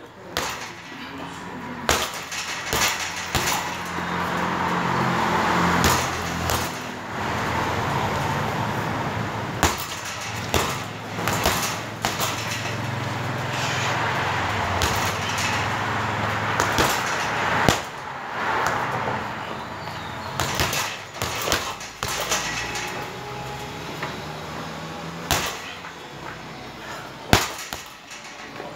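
Boxing-gloved punches and kicks thudding irregularly on a hanging Windy heavy bag, about one strike a second or slower. A rumble swells and fades twice behind the strikes.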